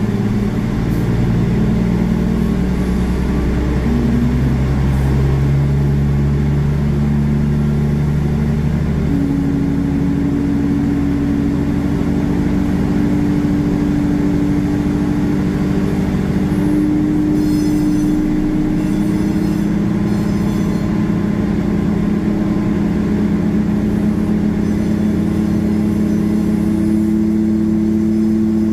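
Pushback tug's engine running steadily as it pushes an airliner back on a towbar: a loud low hum with several steady tones that slowly rise in pitch.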